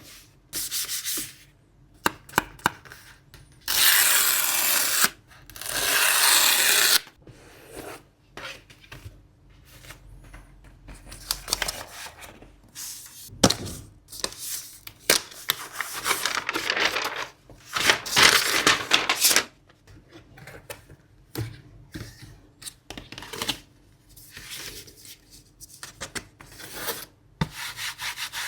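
Close-up handling of product packaging in an unboxing: paper and plastic rubbing and tearing, with many sharp taps and clicks. Two longer hissing stretches come about four and six seconds in.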